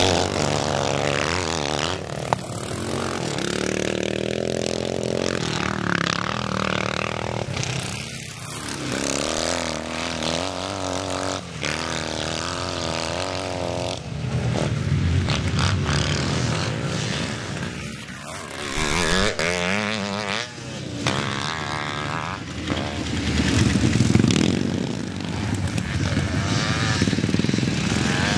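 Vintage scramble motorcycles racing: engines revving hard, their note repeatedly rising and falling as riders open and shut the throttle, with more than one bike heard at once.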